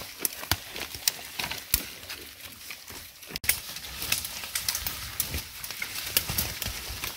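Irregular sharp cracks of dry twigs and branches snapping, with rustling of leaves and brush in between.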